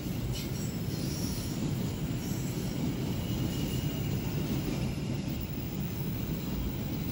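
Freight wagons of a loaded coal train rolling past: a steady low rumble of steel wheels on rail, with a faint high wheel squeal about three to four seconds in.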